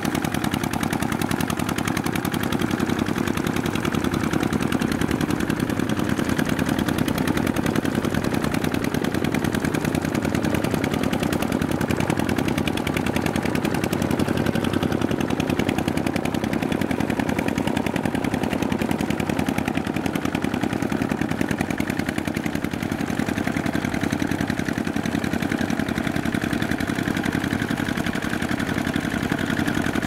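Two-wheel walking tractor's single-cylinder diesel engine running steadily under load as it drags through wet paddy mud, a rapid, even chugging.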